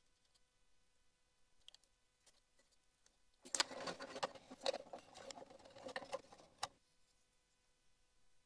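A standalone ECU circuit board being fitted into the original ECU's metal case: about three seconds of faint scraping and rustling with light clicks midway, ending in a sharp click.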